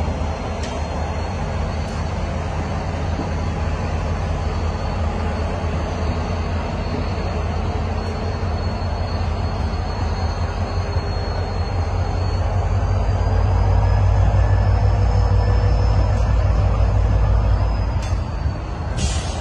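Passenger train of stainless-steel coaches rolling past: a steady low rumble of wheels on the track that swells louder a little past halfway, with a thin high squeal wavering above it. A short hiss comes just before the end.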